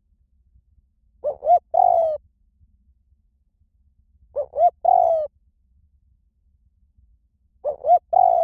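Spotted dove cooing: three calls about three seconds apart, each two short notes followed by a longer, slightly falling note.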